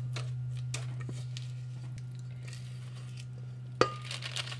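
Leftover batter being scraped out of a stainless steel mixing bowl into a small cake pan: faint scrapes and taps, then a sharp clink of metal with a brief ring nearly four seconds in, over a steady low hum.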